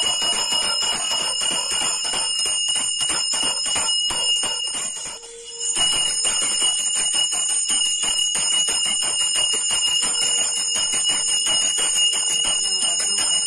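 A brass puja hand bell rung rapidly and continuously, its high ringing tones held over a fast run of strikes, with a brief break about five seconds in.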